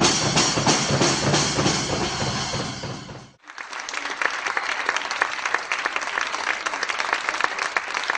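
A drum kit and percussion playing loudly with ringing cymbals, cut off suddenly about three seconds in; then an audience applauding.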